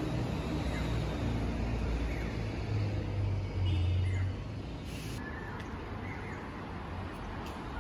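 Low, steady rumble of car engines, swelling briefly about three and a half seconds in, with a few faint bird chirps over it.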